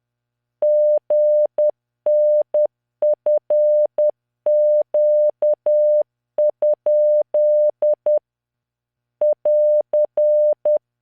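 Morse code practice tone at 600 Hz from CW training software, sent at 10 words per minute: short dots and long dashes in five-character groups of random letters, figures and punctuation, with brief pauses between groups. There is a faint click at each key-on and key-off, and the sending stops a little before the end.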